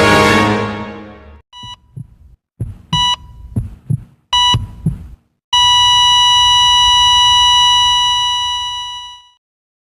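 Heart-monitor sound effect: three short beeps with low heartbeat thumps between them, then a long steady flatline tone that fades out, the signal of the heart stopping. Music fades out just before the beeps.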